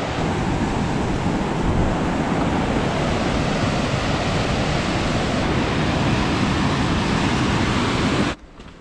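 Steady roar of a waterfall's rushing water, cutting off abruptly near the end.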